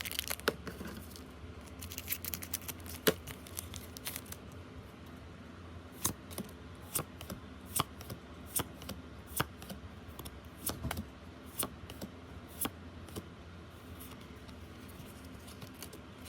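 Pokémon trading cards being handled, with a cluster of sharp clicks and snaps at the start, then single crisp clicks about every half second to a second as cards are flicked through one by one.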